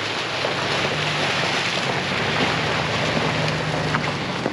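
Dodge pickup truck driving through puddles on a muddy dirt road: engine running under the splash and hiss of tyres in water and mud, growing louder as the truck comes close.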